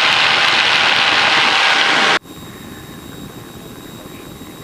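Single-engine light aircraft engine and propeller at takeoff power, heard as loud, even cabin noise during the takeoff roll. About two seconds in the sound cuts out abruptly, leaving a much quieter low rumble with a thin, steady high whine.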